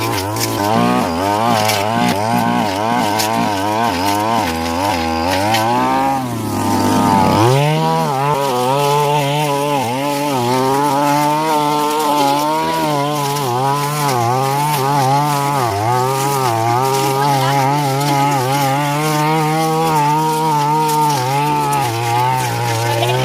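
A Stihl FR 3001 backpack brush cutter's two-stroke engine running at high revs while cutting brush, its pitch dipping and recovering over and over as it takes load. About six seconds in it drops away briefly, then revs back up.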